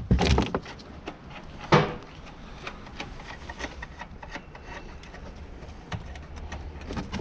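Hand tools and plastic trim being handled while taillight screws are taken out: scattered light clicks and knocks, with a louder knock about two seconds in.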